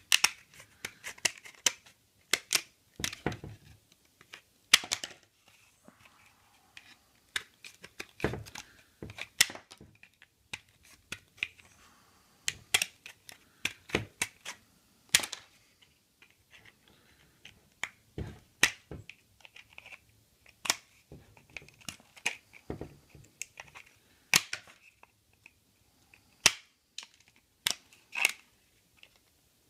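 Compound-action tin snips cutting through two riveted layers of Kydex plastic sheet: a long run of sharp, irregular snaps, one with each bite of the blades.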